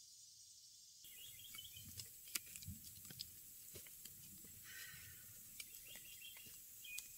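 Quiet woodland sound coming in about a second in: small birds chirping now and then over scattered twig snaps, leaf crackles and soft thuds of footsteps through the undergrowth.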